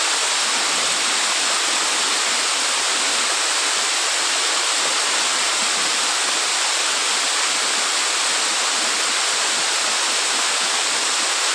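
Waterfall pouring, a steady rushing of falling water that holds constant throughout.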